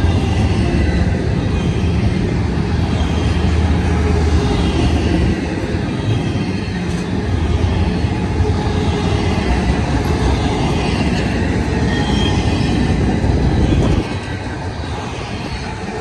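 Double-stack intermodal freight cars rolling past close by: a steady rumble of steel wheels on the rails, with faint high wheel squeal. The rumble drops off suddenly about fourteen seconds in.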